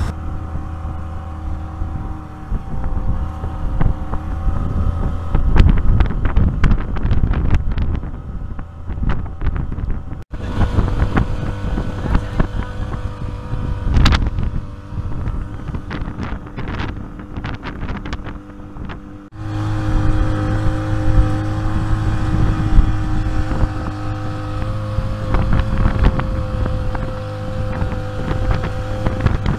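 Motorboat engine running steadily at cruising speed, a constant low hum, with wind buffeting the microphone and crackling gusts over it. The sound breaks off sharply about ten seconds in and again a little before twenty seconds, then carries on much the same.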